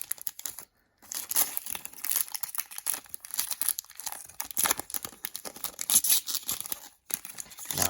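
Trading card pack being handled and opened: crinkling and tearing of the wrapper with quick rustling clicks of cards.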